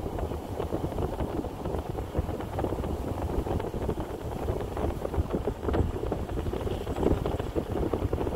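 Wind buffeting the microphone over the rumble of a moving car, a steady crackling rush with no pauses.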